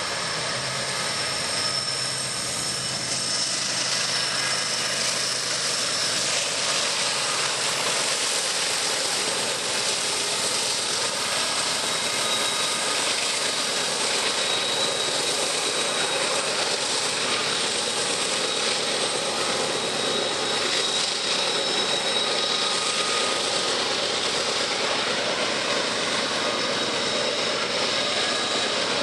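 A heavy Canadian Pacific grain train climbing a grade: GE ES44AC diesel locomotives under load, then loaded grain hopper cars rolling by on steel wheels. It makes a dense, steady rumble that builds a little as the train draws near, with thin high squeals coming and going.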